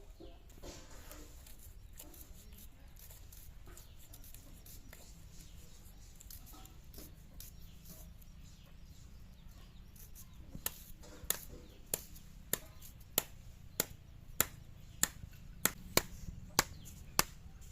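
Chopping: sharp, evenly spaced knocks about every 0.6 seconds begin a little past halfway, after a stretch of faint background sound.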